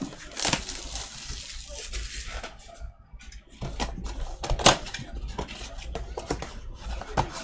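Clear plastic shrink-wrap being torn and peeled off a cardboard trading-card blaster box: irregular crackling and crinkling, with a sharp snap of the plastic about four and a half seconds in.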